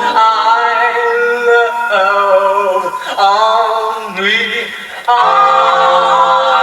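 Male doo-wop group singing a cappella in close harmony, with a lead voice sliding and swooping in pitch over the held backing chords. The sound thins out briefly just before five seconds in, then the full harmony comes back together.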